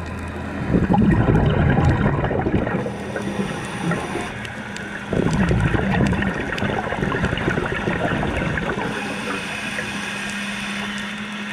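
Scuba exhaust bubbles gurgling and rushing past an underwater camera housing, in two long surges starting about a second in and about five seconds in, over a faint steady low hum.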